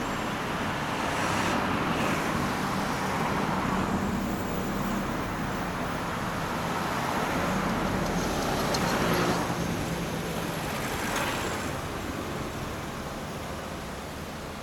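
Street traffic at an intersection: cars and scooters pass close by. The sound swells twice as vehicles go past, the second time with a small motor scooter passing near.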